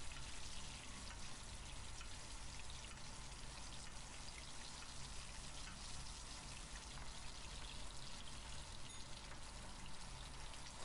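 Winter flounder fillets frying in hot oil in a skillet: a steady sizzle with many fine crackles as the oil is spooned over the skin side to baste it.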